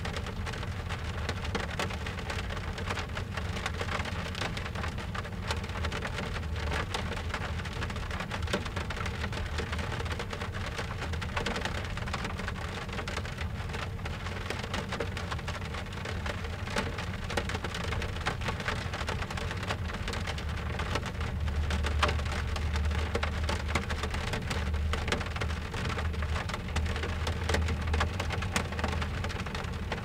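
Rain drumming on a car's roof and windscreen, heard from inside the cabin as a steady dense patter of drops. A low rumble underneath swells louder about two-thirds of the way through.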